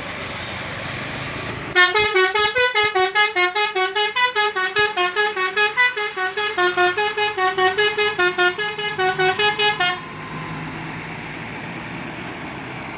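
Bus 'telolet basuri' musical horn playing a fast melody of short staccato notes, about six a second, starting about two seconds in and cutting off suddenly after about eight seconds.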